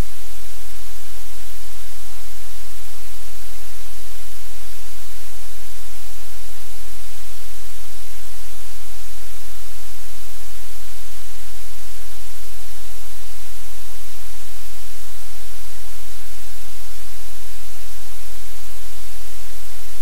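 Steady loud hiss of static with a low hum beneath it, unchanging throughout.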